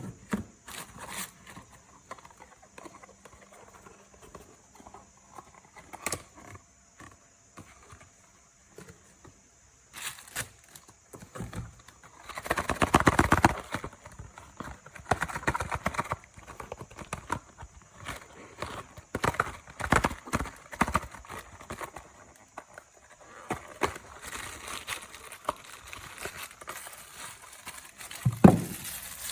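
Toy packaging being handled and opened: irregular clicks and taps with crinkling rustles, a denser burst of crinkling about twelve seconds in, and a sharp knock near the end.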